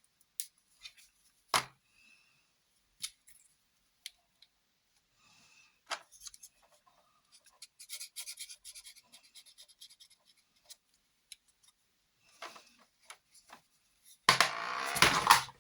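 Packaging of an airbrush marker kit being handled and unpacked: scattered small clicks, taps and rustles, then a loud rough rustling noise lasting about a second near the end.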